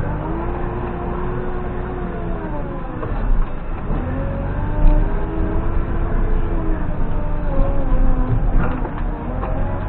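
JCB 3CX backhoe loader's diesel engine running, its pitch rising and falling in long swells as it revs up and settles back, about three times.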